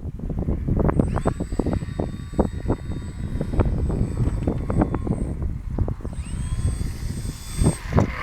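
An RC model plane's motor and propeller give a thin, high whine that comes in about a second in and drops away near the end. Heavy wind buffets the microphone throughout.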